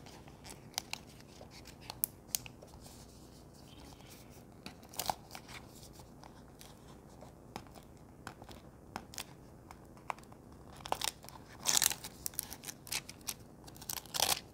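Screen protector packaging being handled and opened by hand: scattered small clicks and crinkles of plastic and paper, with louder rustling bursts about eleven seconds in and again near the end.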